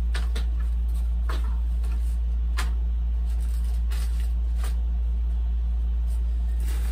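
A steady low hum runs throughout. Over it come scattered light taps and rustles of foam model-airplane parts and styrofoam packing being handled, about seven of them, spread unevenly.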